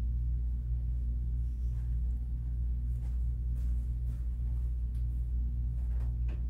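Steady low hum with no change in pitch or level, and a few faint clicks and rustles about halfway through and again near the end.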